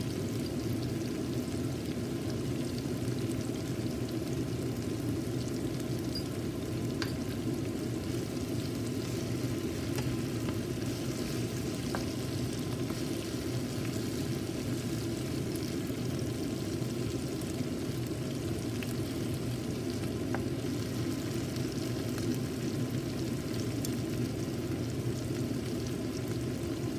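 Tomato and onion sauce sizzling in oil in a non-stick frying pan, stirred now and then with a wooden spatula, with a few light clicks of the spatula against the pan.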